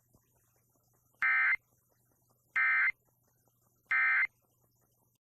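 Emergency Alert System end-of-message code: three short, identical bursts of digital data tone about 1.3 seconds apart. This is the EOM signal sent three times, which closes the broadcast severe thunderstorm warning.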